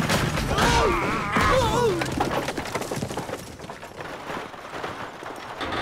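Cartoon covered wagon's wheels rattling and clattering over rough ground, the rattle fading as the wagon rolls away. A man's wordless shouted cry is over it for the first two seconds.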